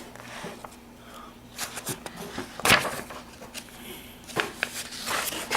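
Soft handling noises of a picture book's paper pages, faint rustles and clicks, with one sharp tap a little past halfway through.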